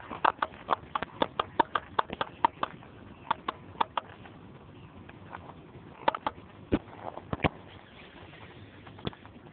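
Whippet puppies eating raw meat from a metal bowl: a quick run of sharp chewing clicks over the first few seconds, then scattered clicks and two louder knocks near the bowl.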